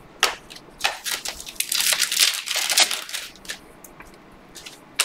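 A stack of Panini Prizm basketball cards being flipped through by hand: quick rustles and clicks of the slick cards sliding against each other, busiest in the first three seconds, then a few scattered clicks.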